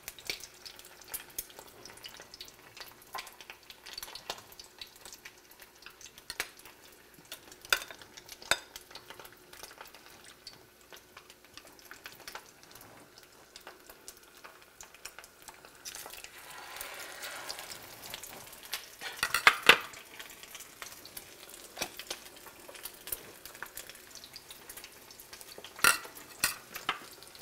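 Whiting fillets frying in shallow oil in a skillet, a steady faint sizzle and crackle, with a fork clicking against a glass bowl of egg wash. A little past halfway the sizzle swells as a second floured, egg-dipped fillet goes into the hot oil, followed by a couple of sharp clinks.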